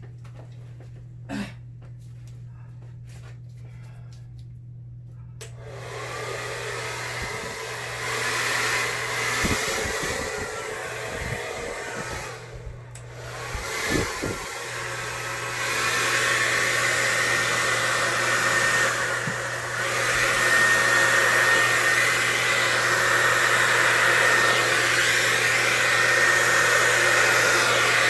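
A few light clicks, then about five seconds in a hair dryer switches on and runs steadily, blowing air across thin, freshly poured acrylic paint. It drops away briefly about halfway through and grows louder later, with a thin whine in the latter part.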